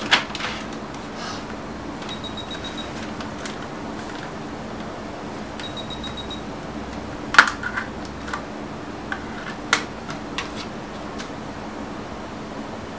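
Plastic clicks and snaps as a Galaxy S4-style smartphone is handled and its snap-on back cover is prised off, the loudest snap about seven seconds in with a couple of smaller clicks after it. A steady low hum runs underneath.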